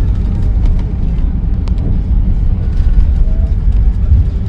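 Cabin noise inside an Airbus A320 airliner during landing: a loud, steady low rumble of engines, airflow and running gear, with a few light clicks and rattles.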